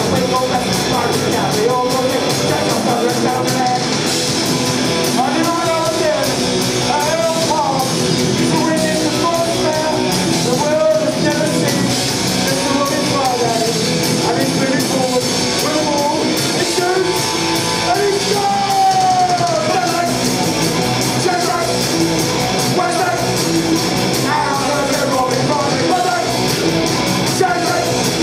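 Live punk rock band playing at a steady loud level: a singer's vocal line over electric guitar, bass guitar and drums.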